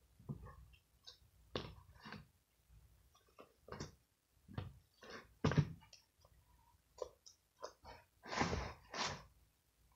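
Slime being kneaded and squeezed by hand: irregular wet squelches and small pops, the loudest about five and a half and eight and a half seconds in.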